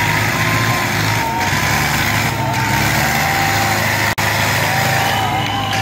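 Diesel engines of two tractors, a Farmtrac 6055 and a Sonalika DI-35 Yodha, running flat out under load as they pull against each other in a tug of war: a loud, steady drone with a thin wavering high tone above it.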